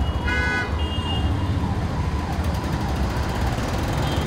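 Steady road traffic noise from trucks, buses and cars, with a siren sounding over it, its pitch falling in a sweep about once a second. Near the start a vehicle horn honks twice, briefly.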